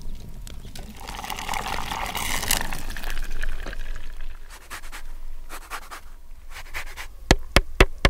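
Liquid poured from a small metal pot for a couple of seconds, then a few quick, sharp rasping strokes near the end as citrus zest is grated on a handheld grater.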